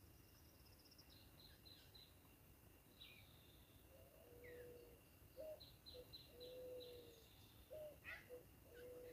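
Faint birdsong over a quiet outdoor background: runs of short, high chirps, joined from about four seconds in by lower, drawn-out whistled notes.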